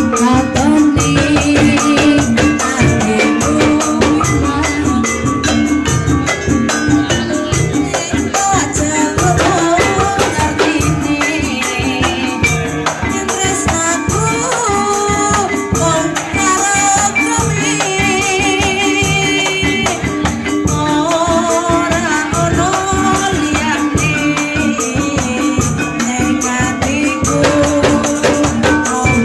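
Loud live music from a gajah-gajahan folk ensemble playing a dangdut-style song. Fast, dense shaken-jingle percussion and drum strokes run under a wavering melody line, with some singing.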